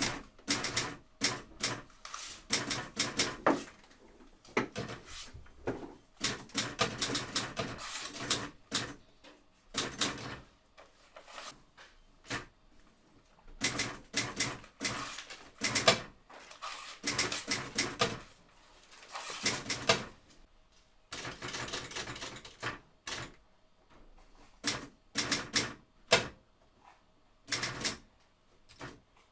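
Typewriter being typed on: runs of rapid key strikes broken by short pauses.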